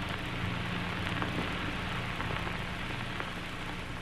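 Steady crackling hiss and low hum of an old early sound-film soundtrack during a silent pause, with scattered faint clicks.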